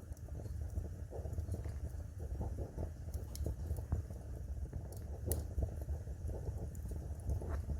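Wood fire burning in a fireplace: a low steady rumble of the flames with irregular crackling and a few sharp pops from the burning logs.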